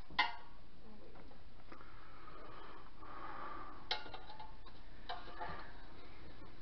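Metal tongs clinking against the air fryer basket while handling barbecue chicken pieces. There are a few sharp clicks with a short ring: the loudest just after the start, one about four seconds in and a fainter one soon after.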